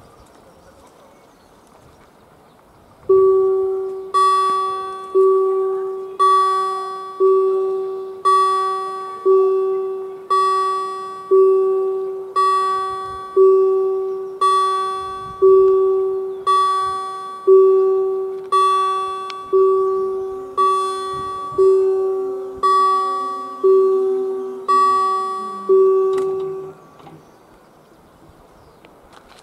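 Level crossing's electronic warning bell ringing about once a second, each stroke a bell-like ding that fades before the next, warning of an approaching train. It starts about three seconds in and stops near the end, once the barriers are down.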